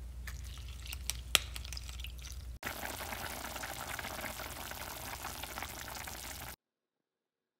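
A fork pressed into a lemon half over a bowl, with a few sharp clicks of metal on the bowl, the loudest about a second and a half in. About two and a half seconds in it switches to a pot of soup simmering on the stove, a steady bubbling hiss that cuts off suddenly about a second before the end.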